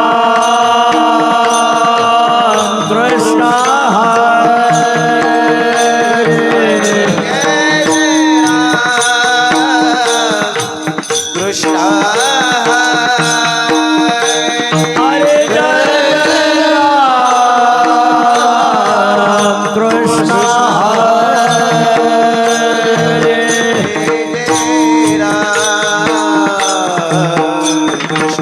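Devotional kirtan singing: a voice holding long, gliding melodic phrases over a steady sustained drone, with light percussion.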